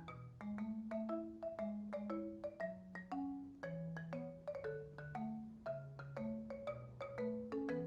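Background music: a light melody of struck, quickly fading notes over a walking bass line, several notes a second.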